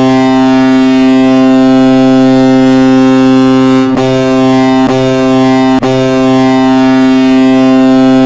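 Colorado Avalanche hockey goal horn sounding one long, deep, loud blast at a single pitch, with three brief dips near the middle.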